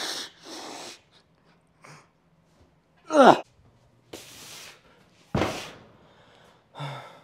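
Heavy breathing and gasps of a lifter right after a set of barbell preacher curls, with a loud groan falling in pitch about three seconds in. A thud follows a little after five seconds.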